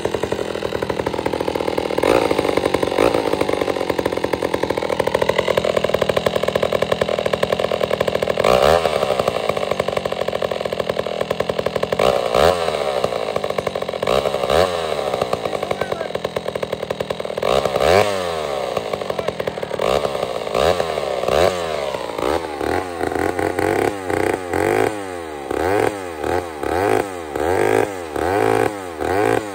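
107 cc Pioneer two-stroke chainsaw running steadily, then revved up and down several times. From about two-thirds of the way in it runs in quick repeated revs, about one a second, as its freshly hand-filed .404 skip-tooth chain goes into a log on its first cut.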